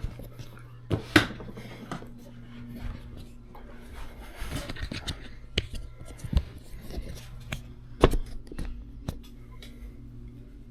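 Rustling and handling noises with scattered clicks and two sharp knocks, one about a second in and one about eight seconds in, over a steady low hum.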